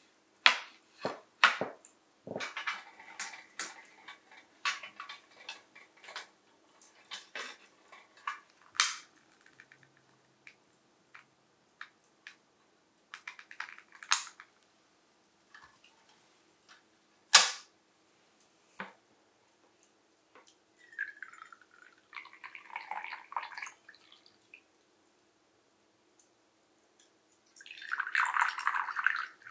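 Dishes and glass cups clinking and knocking as they are set on a glass coffee table, with a few sharp single clicks further on as a candle lantern is lit with a long lighter. Near the end, tea is poured from a ceramic teapot into a double-walled glass cup.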